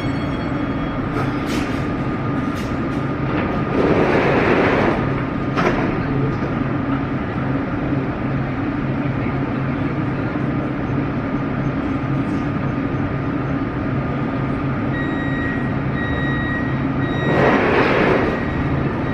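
Warsaw Metro train standing at an underground platform with its doors open, its equipment humming steadily. Two louder bursts of rushing noise come about four seconds in and near the end, and a run of short repeated beeps starts a few seconds before the end.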